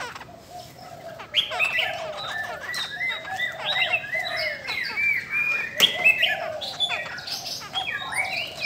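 Caged laughingthrushes singing a fast, continuous run of whistled, warbling notes that sweep up and down. One sharp click about six seconds in.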